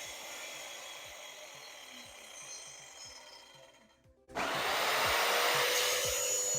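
A saw cutting into plywood starts abruptly about four seconds in and runs on loudly, over background music with a steady beat.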